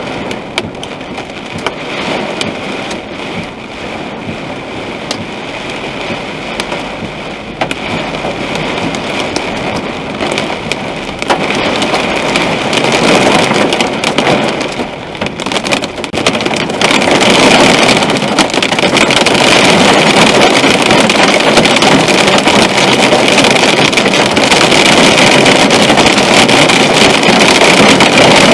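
Storm rain pelting a moving car, heard from inside, as many fine taps over a steady rush of tyres on a wet road. The noise grows louder about a third of the way in and again past halfway.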